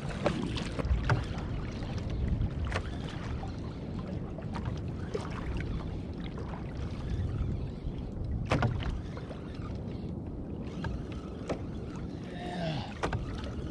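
Water sloshing against a fishing kayak's hull with low wind rumble on the microphone, broken by a few scattered sharp clicks and knocks.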